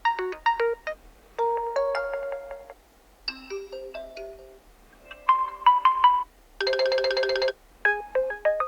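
OPPO A16s default ringtones previewed one after another: about six short melodic snippets of chime and plucked-bell notes, each cut off after about a second, with brief gaps between them.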